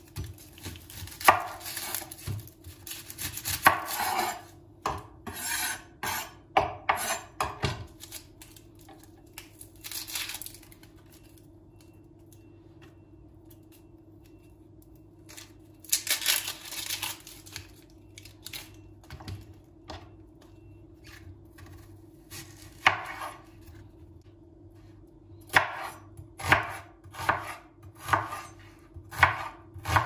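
Chef's knife cutting a raw onion on a bamboo cutting board. Knocks of the blade on the wood come with rustling of the dry onion skin as it is trimmed and peeled, and near the end there is a steady run of slicing strokes, about one every half second.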